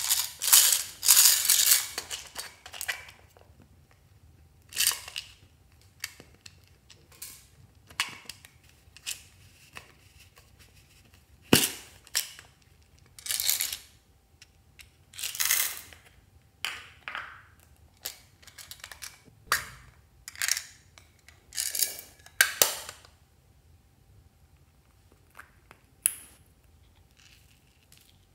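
Small plastic macaron-shaped containers being handled and popped open and shut, with plastic flower charms rattling inside. A string of separate clicks and rattles with short pauses, one sharp click about eleven seconds in.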